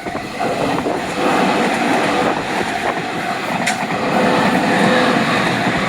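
A Tobu Tojo Line train passing over a level crossing: the steady rush and rumble of the train on the rails, growing a little louder.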